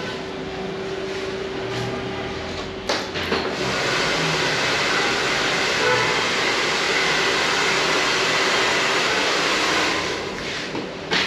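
A loud, steady rushing hiss, like blown air, that starts with a click about three seconds in and dies away near the end, over a faint steady hum.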